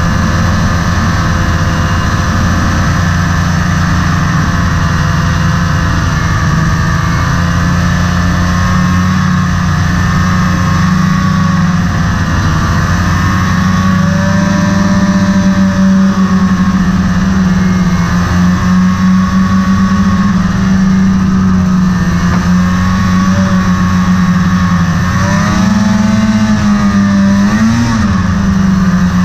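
Snowmobile engine running steadily while riding along a trail, its pitch wavering gently with the throttle and rising briefly near the end.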